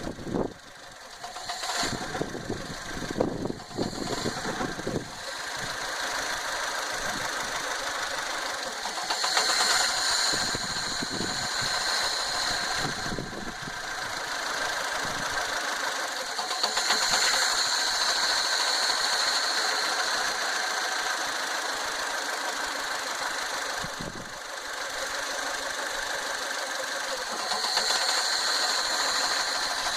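2009 Fiat Panda 1.1 petrol engine running with a misfire, caused by a broken wire in the loom where it leaves the ECU connector. It runs unevenly with irregular knocks for the first few seconds, then settles to a steadier run with three louder spells.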